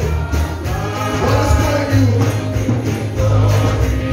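Live gospel praise music: voices singing through microphones over an amplified band with a strong bass line and a steady beat.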